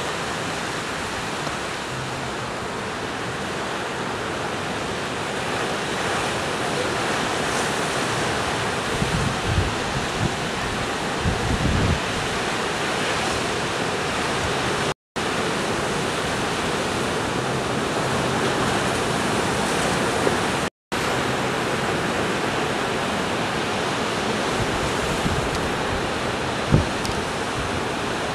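Ocean surf breaking and washing in, a steady rushing noise, with a few short low thumps. The sound cuts out completely twice for a moment.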